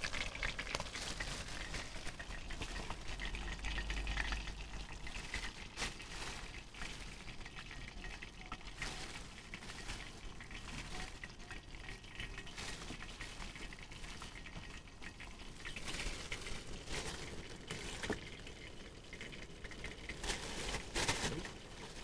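Pieces of fish frying in oil in a pan: a steady sizzle with scattered crackles, and utensils clicking against the dishes now and then.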